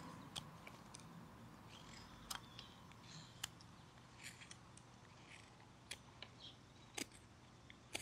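Flexcut detail knife whittling a basswood block: faint short slicing and scraping cuts with small sharp clicks at irregular intervals.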